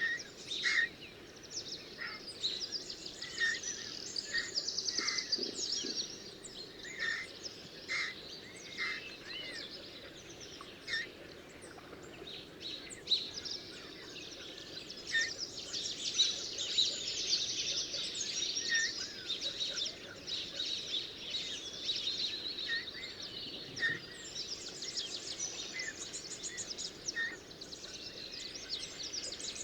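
Several small birds chirping and trilling together over a faint steady outdoor background. Short repeated notes come at first, then dense, fast high trills build up about halfway through.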